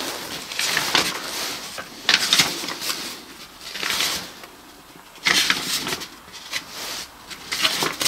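Irregular rustling and crunching: about half a dozen short, sharp bursts of noise, unevenly spaced.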